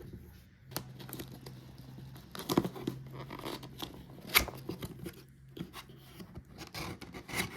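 Packaging being torn open and handled: tearing and crinkling with scattered sharp clicks and knocks.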